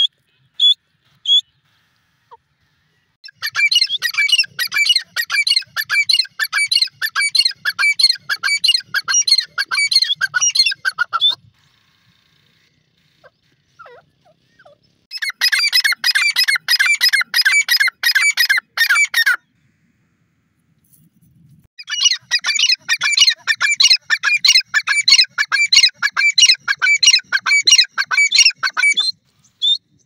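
Grey francolin calling: three long bouts of rapid, repeated high-pitched notes, each several seconds long, separated by short pauses.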